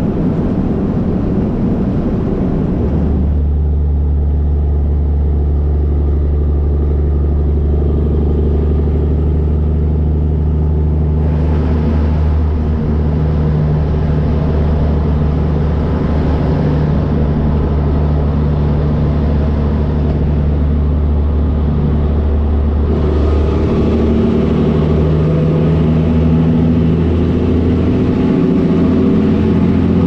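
Cabover Peterbilt 362 semi truck running at highway cruising speed: the diesel engine drones steadily at a constant pitch over road and tyre noise. The sound changes abruptly about three seconds in, settling into a strong, steady low hum.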